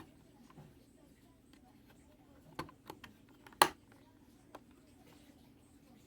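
A few scattered sharp clicks and knocks from a clothes iron's parts and tools being handled, the loudest about three and a half seconds in, over a low steady hum.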